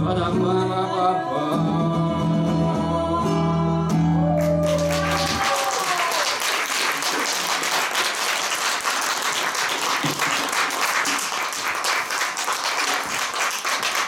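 A woman and a man sing a song's last held note over a strummed acoustic guitar, ending about five seconds in. An audience then applauds steadily, the clapping starting just before the music stops.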